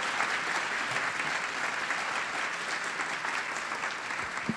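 Large auditorium audience applauding, an even patter of many hands that eases slightly toward the end. Near the end come a couple of low thumps as the microphone on its stand is handled.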